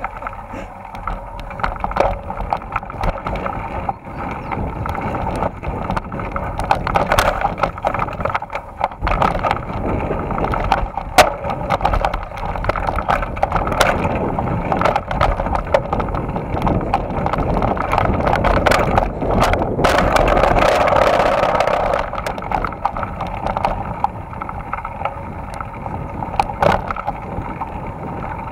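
Mountain bike rolling along a dirt singletrack: a steady rush of tyre and wind noise, broken by frequent sharp clicks and rattles as the bike goes over bumps. It grows louder for a couple of seconds about two-thirds of the way through.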